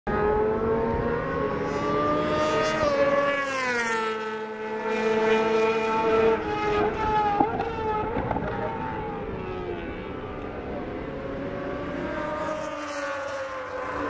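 Honda CBR600RR inline-four race engines at high revs. The pitch falls about three seconds in as the bikes brake and shift down, wavers with short blips around the middle, then climbs again as they accelerate.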